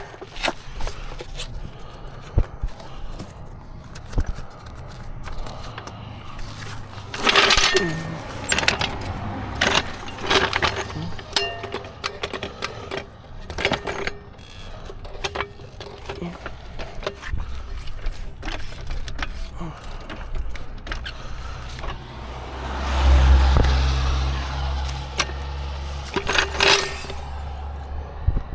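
Metal clinks and rattles of tire-changing tools and a jack being handled under a car, in short bursts. About three-quarters in, a louder rush with a low rumble lasts a couple of seconds.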